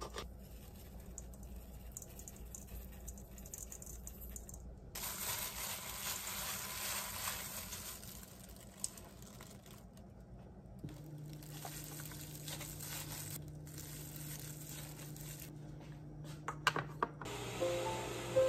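A hand in a plastic glove tossing and squeezing seasoned shredded radish in a stainless steel bowl, noisiest about a quarter of the way in. Soft background music comes in during the second half.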